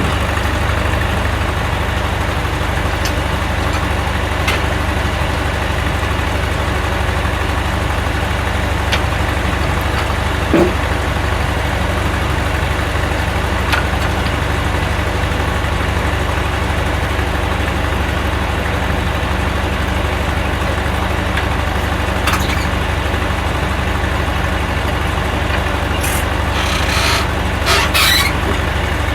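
Engine idling steadily, with a few light knocks and a brief clatter near the end.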